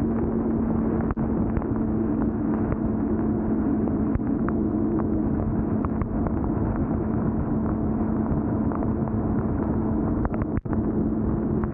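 Wind rushing over the microphone of a Suzuki GSX-R600 at steady cruising speed in the rain, with the bike's inline-four engine holding one steady drone underneath. The sound cuts out for a moment near the end.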